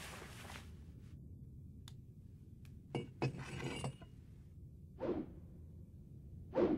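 Sparse soundtrack effects over a low hiss: about three seconds in, a sharp glassy clink followed by about a second of tinkling, then two short soft swishes near the end.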